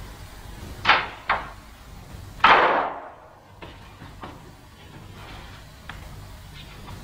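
Two sharp knocks about half a second apart, then a heavy door slamming shut with a loud bang that dies away briefly.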